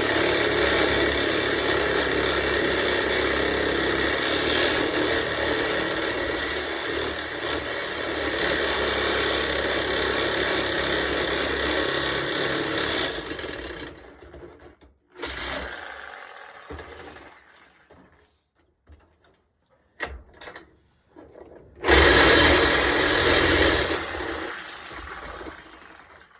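Bladed power saw cutting through a steel truck-bed bolt, running steadily for about thirteen seconds and then stopping; a short burst follows a couple of seconds later, and another burst of cutting near the end.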